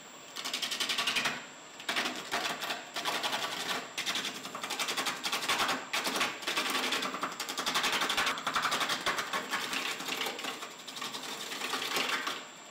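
Spindle roughing gouge cutting a bark-covered log spinning between centers on a wood lathe: a rapid chattering clatter as the edge strikes the still out-of-round wood, in several passes with brief pauses between them.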